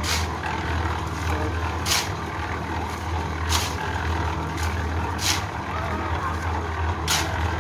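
Small drum concrete mixer running with a steady low hum, while shovels scrape through wet concrete on the ground with a short, sharp scrape roughly every two seconds.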